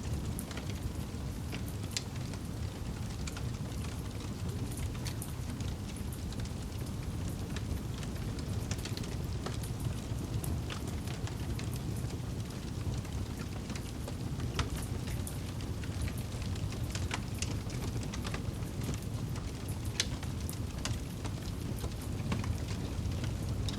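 Wood campfire burning: a steady low rumble of flames under scattered sharp crackles and pops from the burning wood, a few of them louder.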